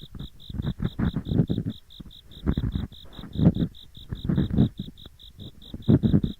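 Ear pick grinding and scraping in both ears at once, in irregular rubbing bursts. Under it, autumn insects chirp steadily at about five high pulses a second.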